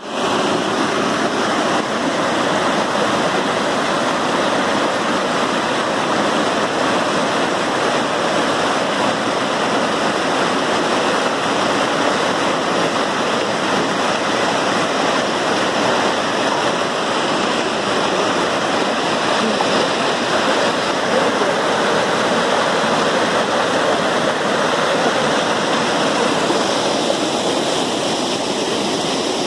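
Mountain river rushing over rocks: a loud, steady roar of white water.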